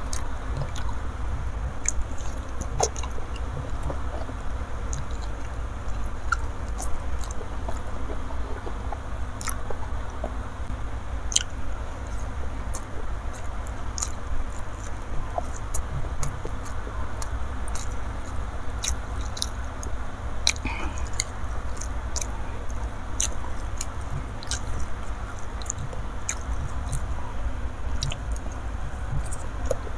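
Close-miked chewing and biting of soft fish roe and eggplant in balado chili sauce, with many small, irregular wet mouth clicks over a steady low hum.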